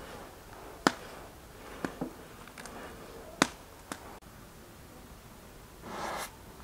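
A handful of sharp clicks and snaps over about three seconds, then a short scraping rustle near the end as a round of flatbread is set down on the iron saj griddle.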